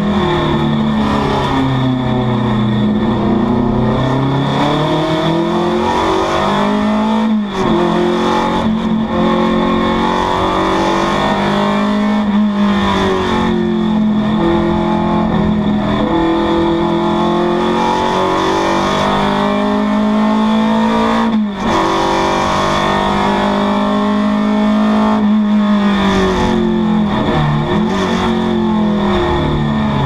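Alfa Romeo Alfasud TI Trofeo's 1.3-litre Autodelta four-cylinder boxer engine, heard from inside the cabin while racing uphill. The revs repeatedly climb and fall as the car accelerates, shifts gears and slows for bends, with two brief sharp dips about 7 and 21 seconds in.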